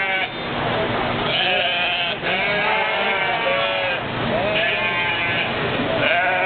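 Sheep bleating: a string of long, wavering bleats, one after another, from several animals in a pen.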